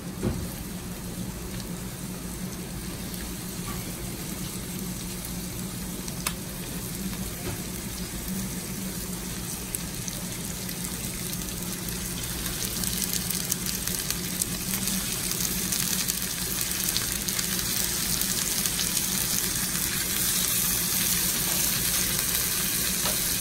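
Raw chicken pieces sizzling and crackling as they are laid into hot oil with sautéed onion and garlic in a frying pan. The frying grows louder and more crackly about halfway through as the pan fills, over a steady low hum.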